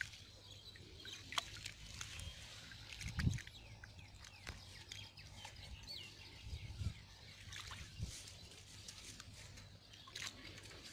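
Wet floating pond weed being rustled and sifted by hand in a bamboo-framed net, with scattered small crackles and water sounds. A few low thumps stand out, the loudest about three seconds in.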